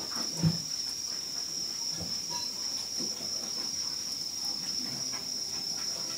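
Steady high-pitched insect chirring throughout, with one dull thump about half a second in and faint soft handling sounds of hands shaping a vegetable-ball mixture over a steel bowl.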